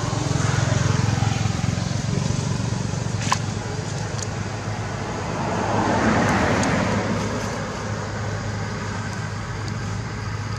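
Steady low hum of motor-vehicle traffic, swelling as a louder vehicle passes about six seconds in, with a single sharp click a little after three seconds.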